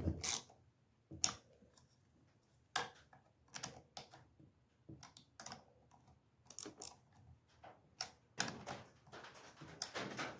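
Scattered light clicks and taps from tools and chainsaw parts being handled, irregular and spaced out, with a quicker cluster near the end.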